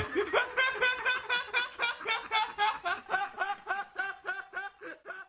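Snickering laughter, likely a laugh sound effect: quick, evenly repeated 'heh-heh' syllables, about four a second, fading out steadily.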